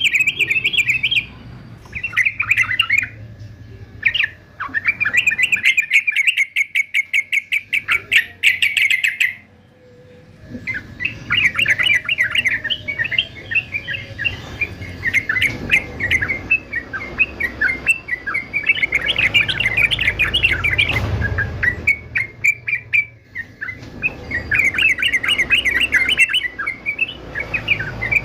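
Male yellow-vented bulbul singing: bursts of rapid, bubbling chattering notes, broken by short pauses about four and ten seconds in.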